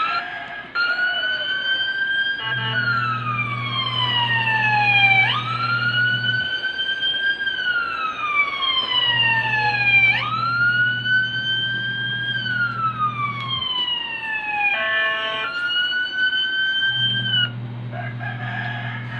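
Recorded ambulance siren wailing: the pitch sweeps up quickly and then falls slowly, repeating about every five seconds. A short horn-like blast sounds about fifteen seconds in.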